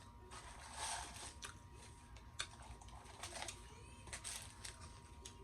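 Person eating chicken nuggets: faint, scattered soft clicks and short rustles of chewing and handling food.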